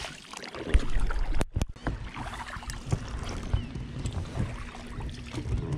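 Oars rowing an inflatable boat: the blades splash and swish through the water, with occasional light knocks from the oarlocks.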